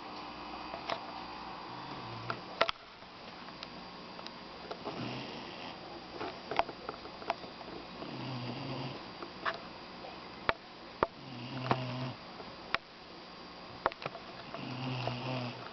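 Doberman puppy snoring in its sleep: a low, buzzing snore with a breathy hiss, about every three seconds, five times over. Sharp short clicks fall between the snores.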